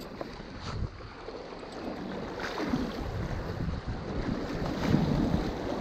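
Wind buffeting the microphone over sea waves washing, with two louder surges of water about halfway through and near the end.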